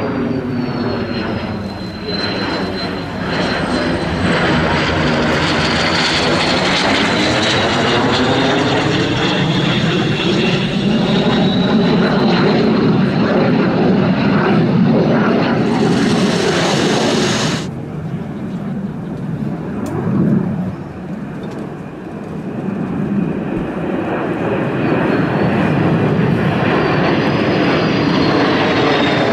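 Aero L-39 Albatros jet trainers flying past: the continuous rush of their turbofan engines, with a high whine that bends up and down in pitch as they pass. The sound drops back about 18 seconds in and builds again after about 22 seconds.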